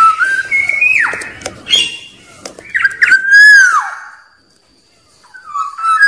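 Black-naped oriole singing: fluty whistled phrases, each ending in a note that slides down in pitch. Two phrases in the first four seconds, a short pause, then another phrase begins near the end.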